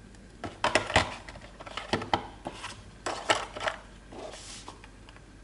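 Hands handling the cardboard packaging of a smartphone box, lifting out a cardboard insert: a string of sharp taps and clicks, then a short softer rustle near the end.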